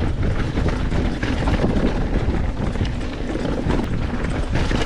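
Wind buffeting the microphone on a fast e-mountain bike ride, with scattered clicks and rattles from the trail.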